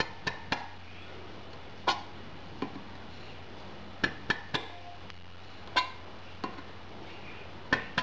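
Blade of a small folding Kershaw Coral Creek pocketknife stabbing into the steel lid of a tin can: about ten sharp metallic clicks and taps at uneven intervals, some with a brief ring.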